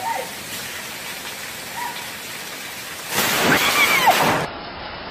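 Heavy rain hissing steadily, with a short cry right at the start. About three seconds in, a loud burst of noise lasting over a second, with a voice crying out through it.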